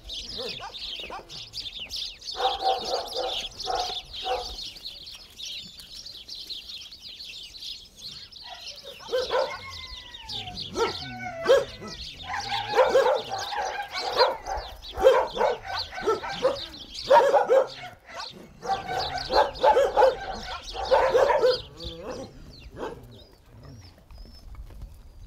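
A flock of small birds chirping, with dogs barking in repeated bursts: a short run about two to four seconds in, then many more from about nine seconds in until near the end.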